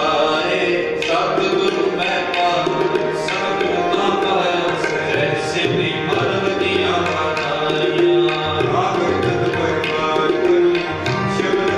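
Sikh kirtan accompaniment: harmoniums holding sustained chords under a steady run of tabla strokes.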